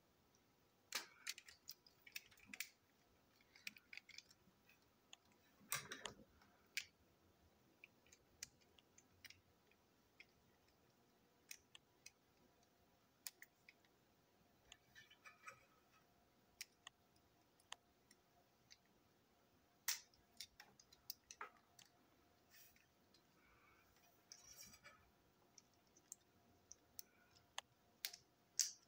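Faint, scattered clicks and taps of small plastic toy-train parts being handled and fitted together by hand, with a couple of brief rustles.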